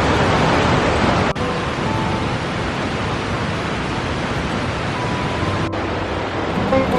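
Creek water rushing, a steady roar of noise that drops out for an instant twice.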